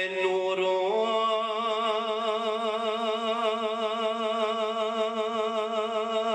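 A man singing Punjabi devotional verse into a microphone, unaccompanied. About a second in he steps up in pitch and draws out one long note with a steady vibrato.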